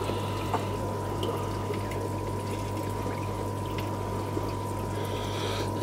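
Aquarium air pump humming steadily under the constant bubbling and trickle of water from air-driven sponge filters.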